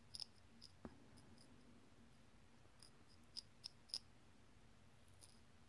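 Faint, irregular light clicks of long acrylic nails against a small plastic jar of nail glitter as it is turned in the hand, a cluster of sharper clicks coming a little past the middle.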